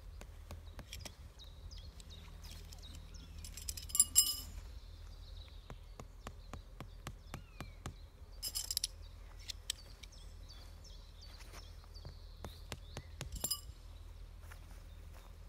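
Metal tent pegs clinking and being struck, in three short clusters of ringing strikes about four to five seconds apart, with fainter ticks between them. Birds chirp throughout over a steady low hum.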